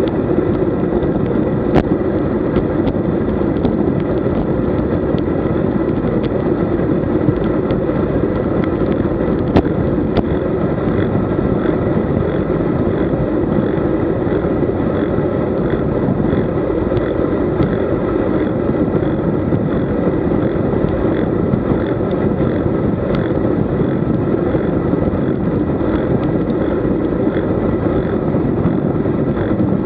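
Steady rush of wind over the microphone of a camera riding along on a road bicycle, mixed with tyre and road noise. A couple of sharp clicks stand out, one about two seconds in and one about ten seconds in.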